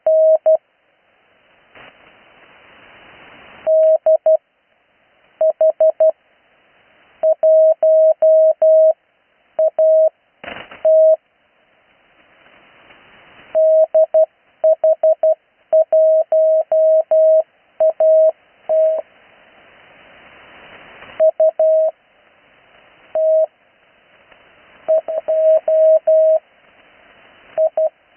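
Slow Morse code (CW) received off-air on the 80 m band: a single steady tone keyed into dots and dashes in letter groups. Receiver band noise swells up in the gaps between characters, and a brief crackle of static comes about ten seconds in.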